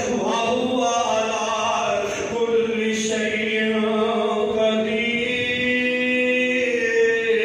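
A man's voice chanting melodically into a microphone, holding long, drawn-out notes that change pitch only a few times, in the style of a preacher's sung recitation.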